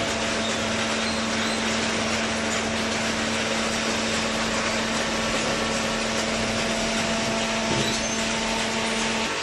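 Fully automatic vertical cardboard baler running, its hydraulic pump motor giving a steady hum over a broad mechanical noise; the hum cuts off near the end.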